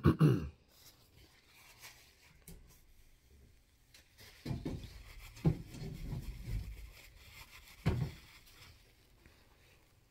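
Knocks and bumps of small objects being handled and set down on a work surface: a sharp knock at the start, a cluster of bumps with some rubbing about halfway through, and one more knock near the end.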